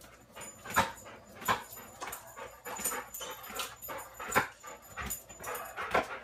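A dog whimpering and yipping in short repeated cries, about one every three-quarters of a second. It is excited, leaping up at tennis players on a television screen.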